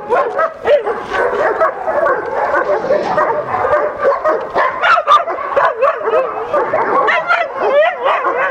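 Several dogs barking over one another in quick, high-pitched calls that rise and fall in pitch.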